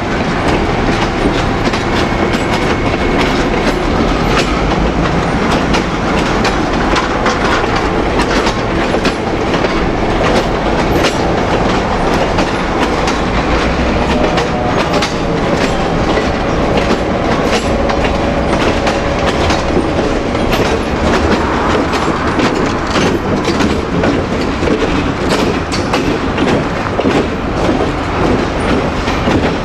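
Railroad cars rolling along jointed track: a steady rumble of wheels on rail with sharp clicks as the wheels pass over the rail joints.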